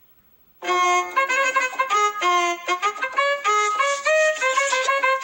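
A short instrumental meme tune: a melody of quick single notes on one pitched lead instrument, starting about half a second in after a moment of silence.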